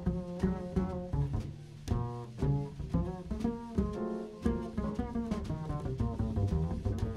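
Upright double bass plucked pizzicato, playing a busy jazz line, with piano chords and light cymbal and drum strokes behind it.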